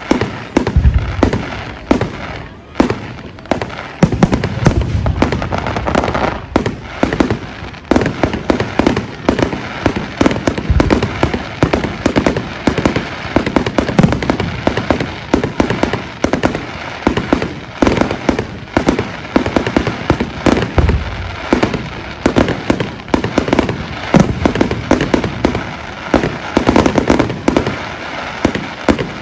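Fireworks display going off in a dense, near-continuous volley of sharp bangs and crackling bursts, with several deeper booms among them.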